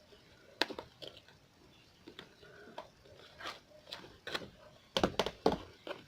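Butter slime being squished and poked by hand, giving scattered soft clicks and squelches, with a quick run of louder ones near the end.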